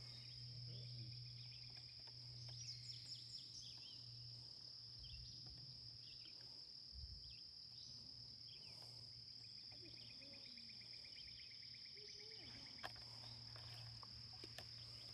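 Faint outdoor ambience dominated by a steady high-pitched drone of insects, over a faint low hum. Birds chirp now and then, with a rapid trill about two-thirds of the way through.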